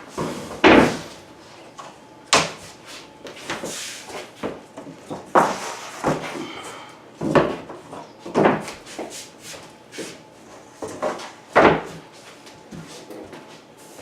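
Vinyl flooring planks being handled and set down on the subfloor: a string of irregular knocks and clatters, several seconds apart.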